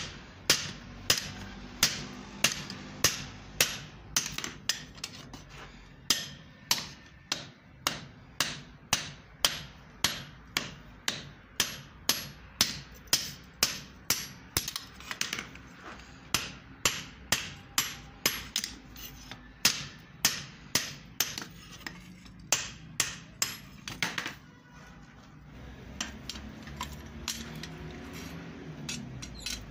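Blacksmith's hand hammer striking a red-hot steel axe head on an anvil: sharp metallic blows at about two a second that stop about 24 seconds in, followed by a few lighter taps.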